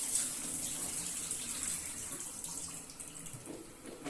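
Water splashing into a kitchen sink as the starchy soaking water is drained off a bowl of raw potatoes, tailing off near the end.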